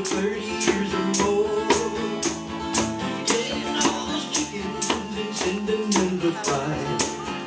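Live folk band music: jingling tambourine-like percussion and a hand drum keep a steady beat of about two strokes a second under a held melody line.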